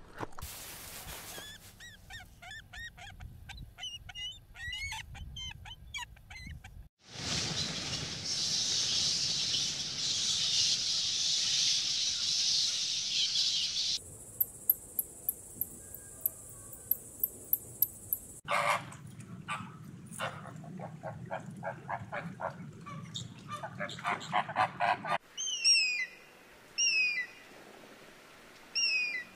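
A run of short animal-sound clips cut together: chirping calls, a stretch of steady hiss, a series of sharp ticks, then repeated falling honk-like waterfowl calls near the end.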